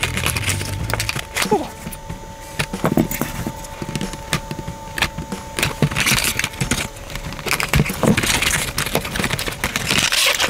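Hands opening and handling an SSD's retail packaging: irregular clicks, taps and crinkling rustles of the box and plastic.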